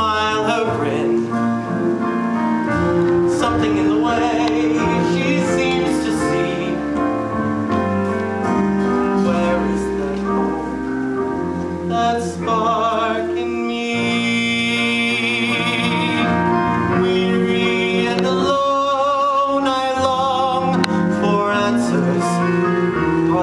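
A young man singing a slow solo ballad from a stage musical over accompaniment, holding long notes with vibrato.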